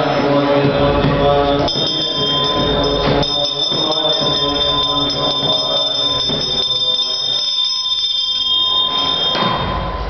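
Chanting voices at the start, then a high, steady bell-like ringing of several tones together begins about two seconds in, holds for about seven seconds and cuts off sharply.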